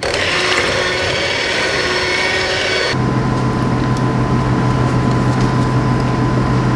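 Electric stand mixer running steadily, beating cake batter. About three seconds in the sound cuts abruptly to a steadier, lower hum.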